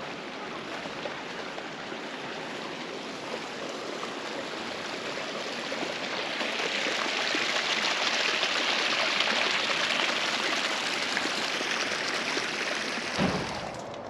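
Small creek water running and trickling as a steady rush, swelling louder in the middle and easing off again, with a single bump near the end.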